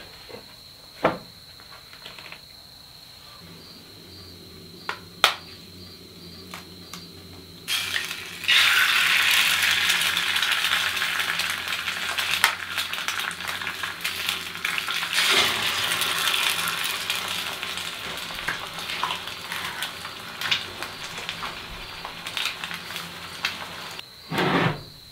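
An egg frying in a small skillet, with a loud, steady sizzle that starts suddenly about eight seconds in and lasts almost to the end. Before it there are a few sharp knocks and a low hum.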